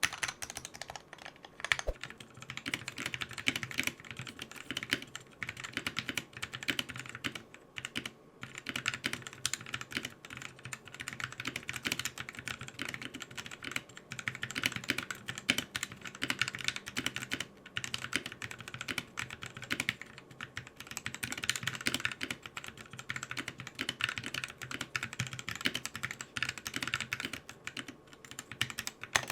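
Fast, continuous typing on a mechanical keyboard fitted with pre-lubed Gateron Cap Yellow linear switches, a dense clatter of keystrokes with only brief pauses.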